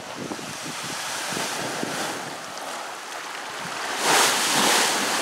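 Wind blowing over the microphone and small waves lapping against a concrete harbour wall, the rush of noise growing louder about four seconds in.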